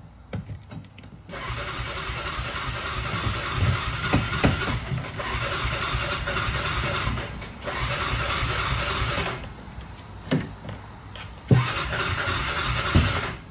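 A side-by-side UTV's engine being started. It runs on the starter in three separate tries, the first about six seconds long and the next two shorter, with quieter pauses between them.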